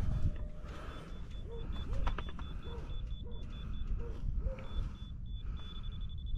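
Bobcat skid steer's diesel engine running low in the background while a grade-laser receiver beeps in quick high pulses, then holds a steady tone near the end: the receiver's on-grade signal. A couple of metal clanks come about two seconds in.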